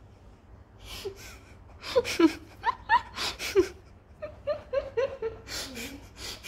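A person laughing in short giggles and breathy bursts, starting about a second in and getting more frequent after two seconds.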